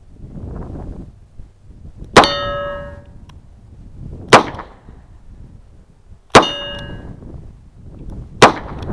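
Four handgun shots fired slowly, about two seconds apart. The first and third each set the thin steel plate target ringing with a clang that dies away within about a second. The second and fourth shots bring no ring.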